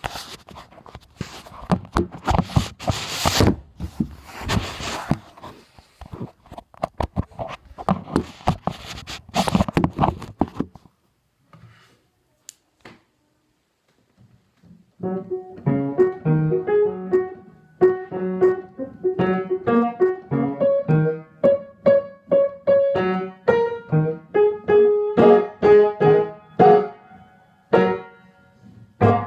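For the first ten seconds or so, rustling and knocking of the recording device being handled, then a few seconds of near silence. From about fifteen seconds in, a piano plays a slow melody in separate notes and chords.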